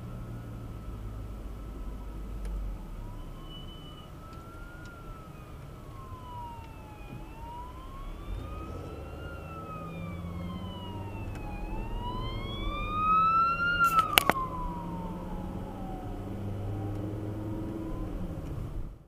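Emergency vehicle siren wailing in slow rising and falling sweeps, a few seconds each, growing louder toward a peak about fourteen seconds in, where a few sharp clicks sound. Heard from inside a moving car, over its engine and road noise.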